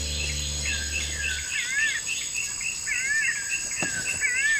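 Forest ambience: insects keep up a steady high buzz while a bird calls over and over in short chirps, with a wavering whistled phrase about every second and a half.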